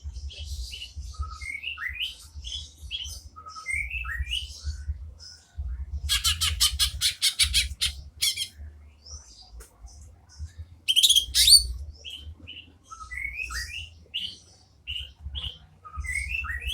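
Greater green leafbird (cucak ijo) calling: a run of short rising chirps, broken by a fast dry rattle about six seconds in and a loud harsh burst of notes around eleven seconds in.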